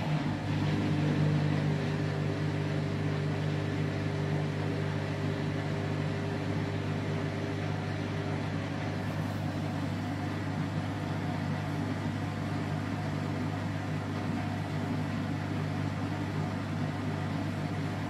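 Front-loading washing machine running with a steady hum and no rise in pitch, at the start of a 1600 rpm spin program while water still lies in the drum.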